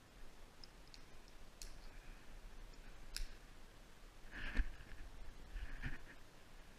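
Metal climbing hardware, a carabiner and rappel device, clicking and clinking lightly as it is handled on a rope, with a few sharp single clicks and two louder bursts of handling noise about four and a half and six seconds in.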